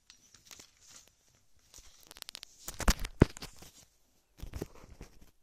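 Rustling and crinkling of a white shopping bag as small boxed products are dropped back into it, with a quick run of clicks and then two loud knocks about three seconds in as the camera is handled, and more rustling after.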